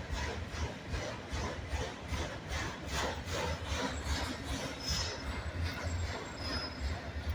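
Union Pacific freight train rolling past, its wheels clacking over the rail joints about three times a second over a steady low rumble, with a few brief high wheel squeals in the second half.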